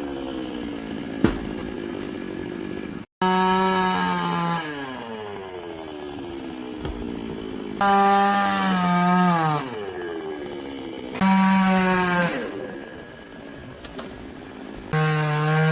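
Chainsaw engine revving to high speed in four bursts about every four seconds, its pitch falling back toward idle between them.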